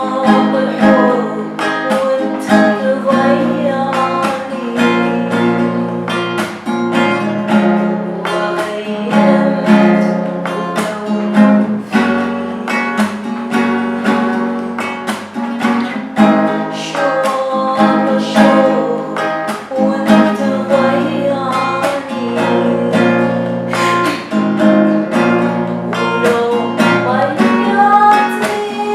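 Acoustic guitar strummed in a steady rhythm, with a voice singing over it at times.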